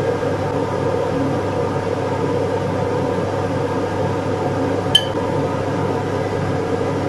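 Steady machine hum with a faint hiss, and a single sharp clink about five seconds in.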